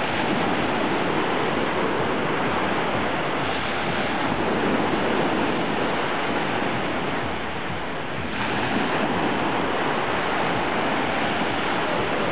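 Small Black Sea waves breaking and washing up a sandy beach, a steady rush of surf with a fresh wave surging in about eight seconds in. Wind rumbles on the microphone underneath.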